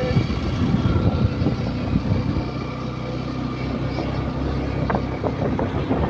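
Motorcycle engine running steadily while riding, with wind buffeting the microphone.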